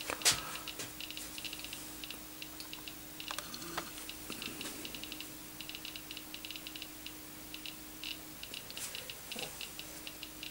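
Geiger counter with a Soviet-era STS Geiger–Müller tube clicking irregularly, several clicks a second and often in quick runs, each click a particle detected from the radioactive vintage Anker watch held against the tube. There is one louder knock just after the start and a faint steady hum underneath.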